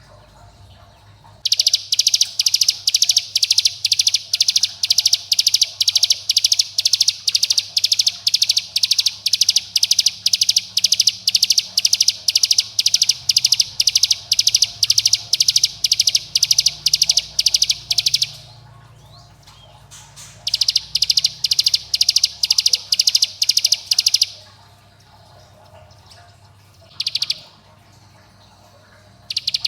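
Ciblek gunung (a prinia) giving its rapid 'bren' call: an even series of sharp, high notes about three a second, in a long run of about seventeen seconds, then a shorter run and a brief burst. It is a lure call, meant to provoke other ciblek gunung into singing.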